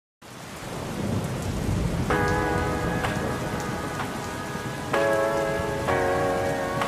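Steady rain that fades in during the first second. From about two seconds in, soft instrumental music notes join it, a new note struck roughly every second.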